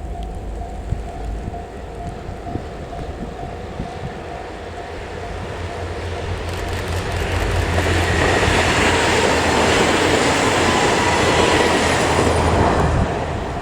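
Four-car KiHa 110 series diesel railcar set approaching and passing at speed: the rumble and wheel-on-rail noise build from about six seconds in, stay loud for several seconds, then fall away sharply near the end.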